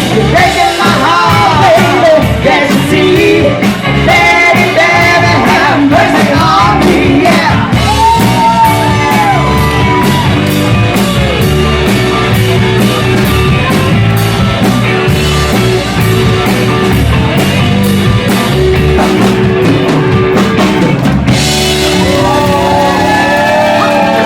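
Rock band playing with a lead singer over a steady drum beat.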